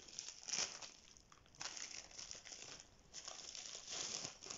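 Clear plastic packaging bags crinkling in several short rustles as they are handled.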